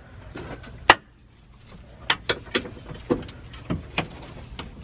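Scattered sharp clicks and knocks from hands working under a side-by-side's metal seat frame to reach the 12 mm seat bolts. One loud knock comes about a second in, and the smaller ones are irregular after that.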